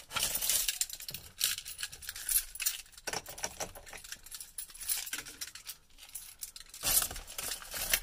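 A bunch of keys jangling on a ring as the ignition key is put in, with scattered small metallic clinks that are thickest about a second in and again near the end.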